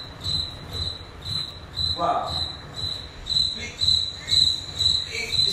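Cricket-like high-pitched chirping, repeating about three times a second, with low pulses in time with the chirps.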